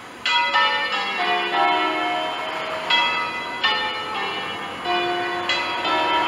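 A ring of five bronze church bells cast by Pruneri in 1887, tenor a slightly flat E3, swinging on their wheels and rung by hand. The ringing starts suddenly about a quarter second in. The bells strike one after another in repeated runs from the highest note down to the lowest, each stroke ringing on under the next.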